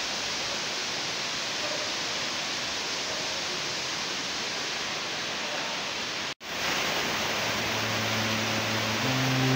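Steady, even rush of falling water from a small waterfall. It cuts out for an instant about six seconds in, and faint music comes in under the water sound near the end.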